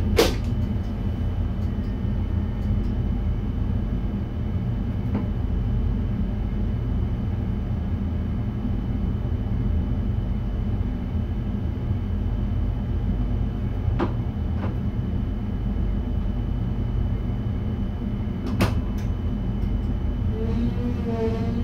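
Steady low rumble inside the driver's cab of an NS VIRM double-deck electric train, with a faint steady high whine and a few sharp clicks spread through it.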